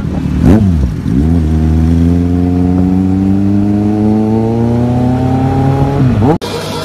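Large-displacement sport motorcycle accelerating away. Its engine pitch drops and climbs again at quick gear changes about half a second and a second in, then rises steadily through one gear, and dips again at another shift just before the sound cuts off suddenly near the end.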